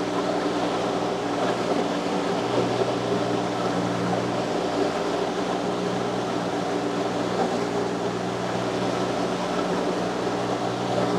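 Mini skid steer loader's engine running steadily, a constant hum with a slight strengthening in its low tone a couple of seconds in.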